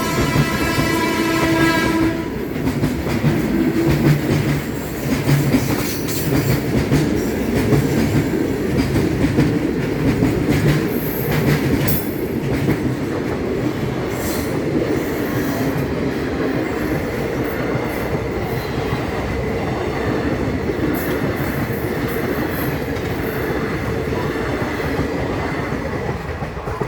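Indian Railways electric locomotive horn blaring and cutting off about two seconds in, then a train rolling past with a steady rumble and clickety-clack of wheels over rail joints.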